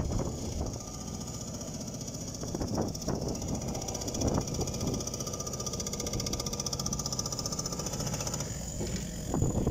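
Heavy construction machinery running with a rapid, steady rattle, with a few dull knocks about three and four seconds in.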